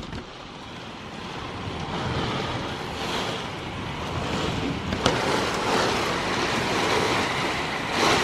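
Strong thunderstorm wind gusts roaring and buffeting the microphone, building louder over the first couple of seconds and staying strong. A single sharp tick about five seconds in.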